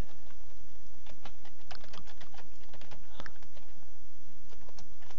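Typing on a computer keyboard: a run of irregular key clicks starting about a second in, over a steady low hum.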